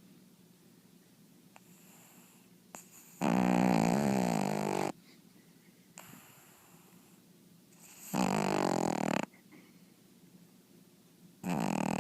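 A pug snoring loudly: three snores, each a second or two long and about four seconds apart, the last cut off at the end.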